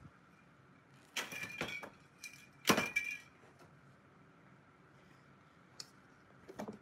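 Aerosol spray-paint can hissing in two short bursts of about a second each, the second starting sharply, followed by quiet and a few light clicks and taps near the end as the cans and lids used as masks are lifted off the painting.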